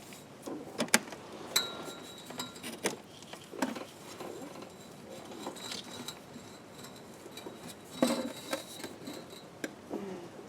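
Scattered metal clinks and knocks as a Jeep's starter motor is wiggled loose and worked out of the bell housing, with a sharp knock about a second in and a cluster of knocks about eight seconds in.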